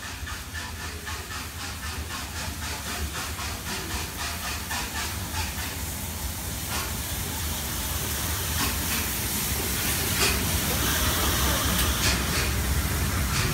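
Steam locomotive 46233 Duchess of Sutherland, an LMS Princess Coronation Pacific, running into the platform and passing close by: a steady hiss of steam over a fast regular beat, growing louder as the engine draws level, with a few sharp clacks in the second half.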